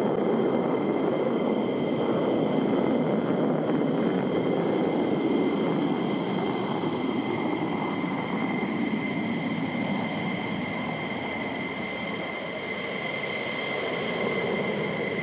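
F-16 jet engines roaring on a formation takeoff, a steady rumble with a high, constant turbine whine over it. It fades a little about two-thirds of the way through, then swells again.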